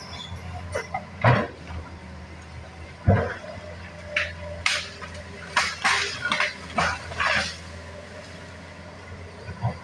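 Hydraulic excavator at work: a steady low engine hum under sharp knocks and clanks, two loud ones early and a quick run of them in the middle.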